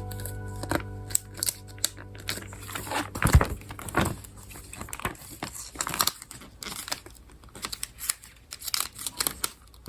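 Packaging crinkling and tearing as items are unwrapped by hand: irregular rustles and sharp clicks, loudest about three to four seconds in.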